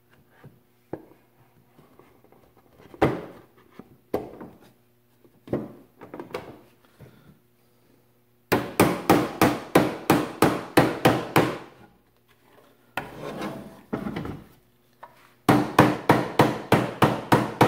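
Hand-cut dovetail joints of a wooden box being knocked together: a few scattered wooden knocks, then two quick runs of sharp knocks at about three to four a second, with a brief scraping between them.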